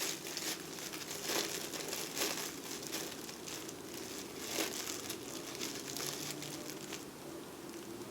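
Wrapping crinkling and crackling in irregular bursts as a tool is handled and unwrapped, easing off near the end.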